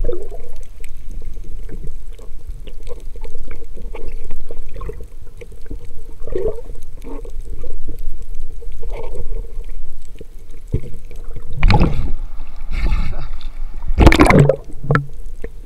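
Seawater sloshing and gurgling around the camera as a diver climbs out of the sea, with steady crackling clicks, a low rumble, and two louder splashes near the end.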